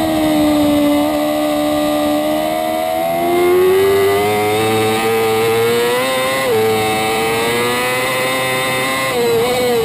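Racing sport bike engine at high revs under hard acceleration, heard from a camera mounted on the bike's fairing. Its pitch sags a little, then climbs steadily, drops slightly about six and a half seconds in and wobbles again near the end.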